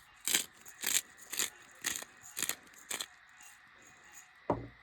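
Black pepper shaken from a shaker, short rattling shakes about two a second for some three seconds, then a single low thump near the end.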